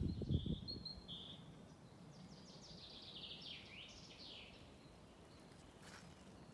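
A songbird sings one short trilled song, quick high notes falling in pitch and ending about four and a half seconds in, over faint outdoor ambience. A few low rumbles come at the very start.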